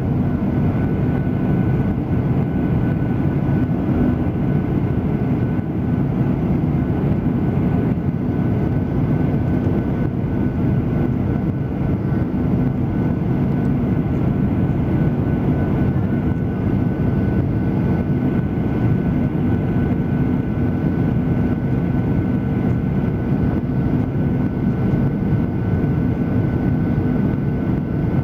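Steady drone of an airliner's engines and rushing air heard inside the cabin in cruising flight, with a few faint steady tones on top.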